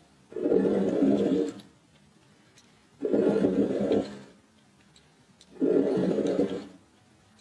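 A fine-tipped pen dragged across paper, drawing long straight lines: three scratchy strokes, each lasting about a second, a couple of seconds apart as the pen is lifted and returned for the next line.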